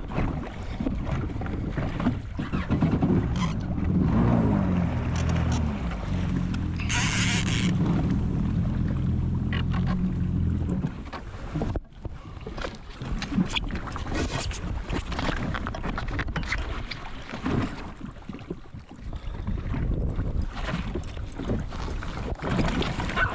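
Jet ski engine running steadily, cutting out about eleven seconds in. After that, irregular splashing and knocks as a hooked wahoo thrashes at the surface beside the hull.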